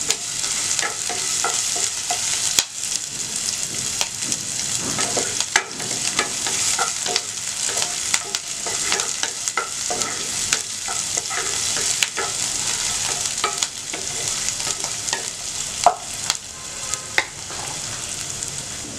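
Chopped garlic, ginger and green chillies sizzling in hot oil in a nonstick frying pan, with a steady hiss. A wooden spatula stirs them, scraping and tapping against the pan in short irregular clicks.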